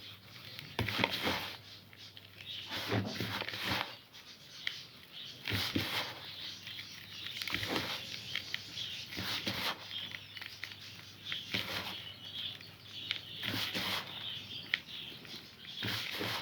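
Bird soft food of corn semolina, carob and oil being mixed by hand in a bowl: irregular rustling and patting every second or two.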